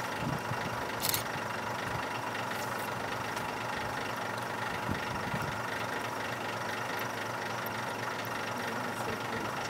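Vehicle engine idling with a steady hum. There is a brief sharp click about a second in.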